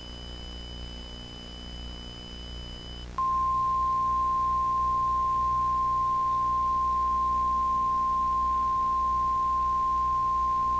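Electronic broadcast test tones from an emergency alert broadcast. First comes a faint, steady high tone over a low hum. About three seconds in, a loud, single steady tone switches on abruptly and holds.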